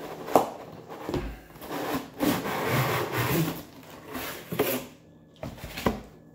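Packaging being handled: a few sharp knocks, with a stretch of rubbing and scraping in the middle.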